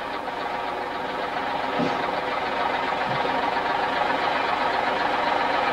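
Van engine running steadily as the van drives slowly through deep floodwater, under a steady hiss.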